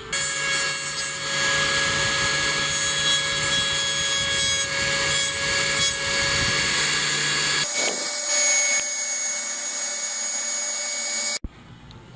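Handheld rotary tool with a small sanding drum running at speed and sanding a balsa wood part: a steady high motor whine over a grinding hiss. The sound changes about two-thirds of the way through and cuts off abruptly near the end.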